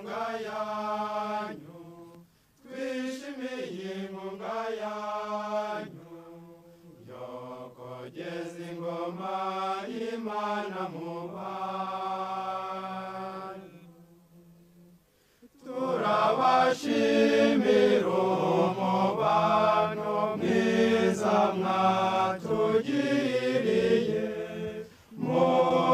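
Group of young men singing a chanted song of thanks. The singing is soft at first, with a low held note under the melody. After a brief pause just past halfway it becomes much louder and fuller.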